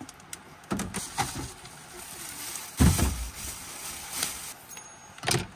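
Plastic grocery bags rustling and a series of knocks as a plastic cutting board and food are set down on a truck tailgate; the loudest, heaviest knock comes about three seconds in.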